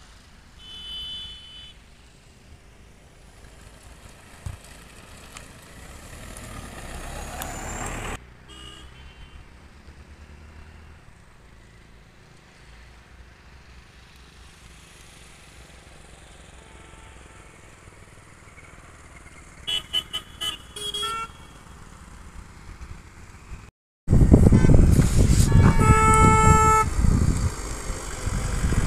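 Vehicle horns sounding on a hill road: a short toot about a second in, then a quick string of toots later on. Between them a rushing sound rises and breaks off. Near the end a much louder rushing noise comes in, and a deeper horn sounds over it.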